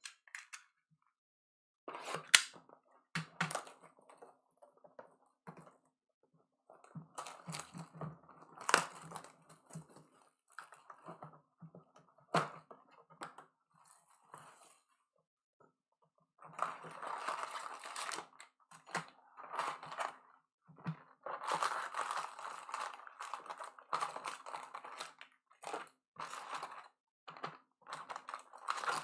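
Hands slitting and peeling the plastic shrink-wrap off a sealed box of baseball cards, opening the cardboard lid and pulling out the wrapped card packs. It comes through as irregular crinkling and rustling with sharp clicks, sparse at first and busiest in the second half.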